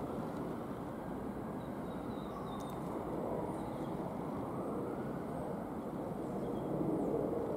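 Electric train running on the line, a steady rumble that grows a little louder toward the end as it draws nearer.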